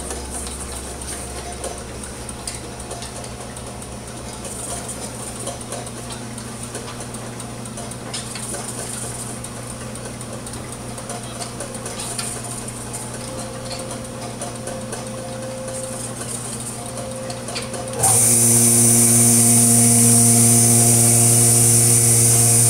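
Cozzoli vial filler and plugger machine running: a steady mechanical hum with light clicking. About 18 seconds in the sound becomes abruptly louder, with a strong buzz and a high hiss.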